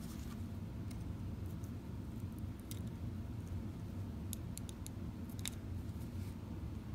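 Faint, scattered clicks and light scrapes of a small tool working inside a VW speedometer as old grease is scraped out, over a steady low hum.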